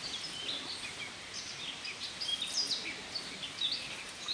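Woodland birdsong: several small birds chirping, with many short, quick rising and falling whistles overlapping, over steady outdoor background noise.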